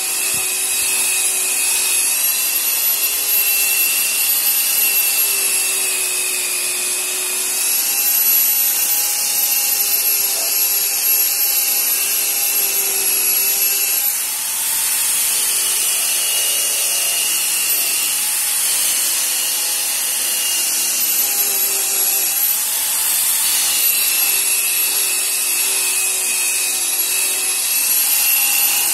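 Corded electric car polisher with a foam pad running against a car's painted door: a steady motor whine whose pitch dips and recovers slowly as the pad is pressed and worked over the paint, with a rushing hiss of pad on paint.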